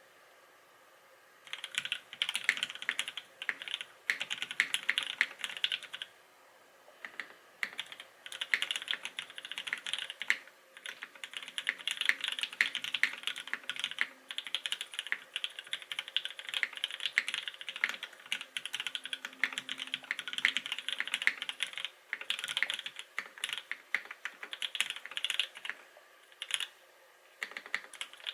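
Typing on a Smith + Rune Iron165 SE mechanical keyboard with a carbon fibre plate, lubed Gateron Black Ink linear switches and GMK Space Cadet keycaps: quick runs of key presses. The typing begins about a second and a half in and stops briefly a few times.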